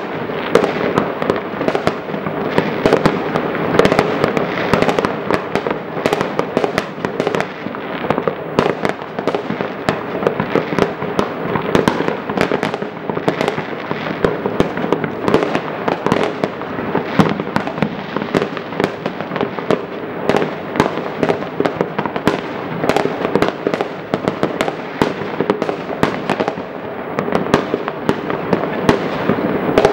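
Many fireworks going off at once across a town: a dense, unbroken run of bangs and crackles with no let-up.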